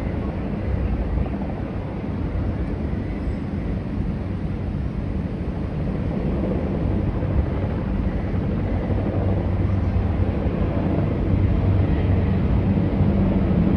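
Formation of military helicopters, one of them a tandem-rotor Chinook, flying past. Their rotor and engine noise is a steady low hum that grows gradually louder as they approach.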